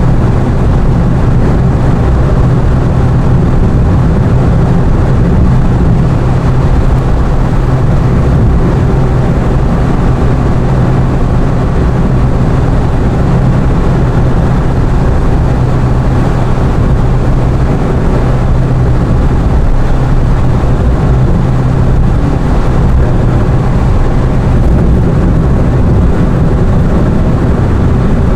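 Steady engine and road noise of a moving car heard from inside, a constant low drone with no change in pace.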